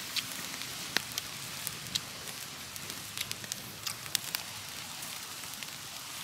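Wood fire crackling, with scattered sharp pops over a steady hiss.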